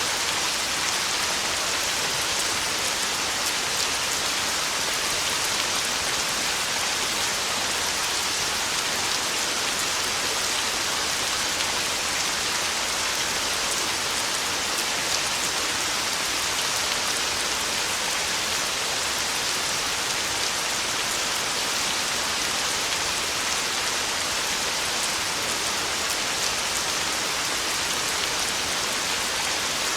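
Heavy rain falling steadily, a dense even hiss of drops without thunder.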